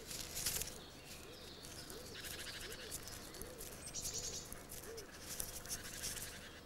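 Faint natural ambience of birds calling and insects chirping, with short buzzing trills every couple of seconds.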